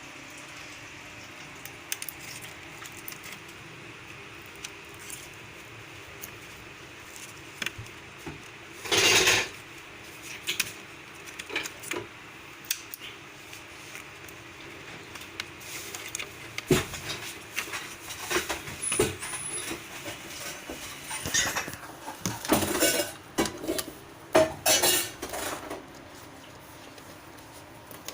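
Small hard objects clinking, knocking and scraping as they are handled. There is a loud scrape of about a second around nine seconds in, and a busier stretch of clatter in the second half.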